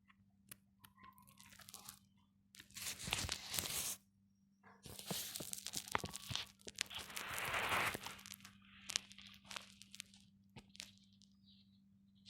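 A pet monkey crunching and tearing at food, in two long crackling stretches with scattered sharp clicks between them.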